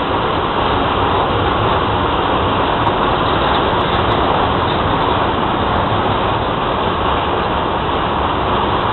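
A freight train of tank wagons rolling past on a yard track: a steady, even noise of wheels on rail with no distinct clanks or squeal.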